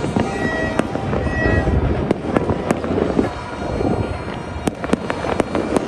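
Fireworks going off across the city: sharp, distant bangs and cracks at irregular intervals, over a steady wash of many more bursts blending together.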